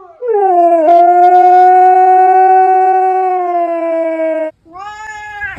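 Husky howling: one long held howl of about four seconds, sinking slightly in pitch at the end, then a shorter second howl near the end.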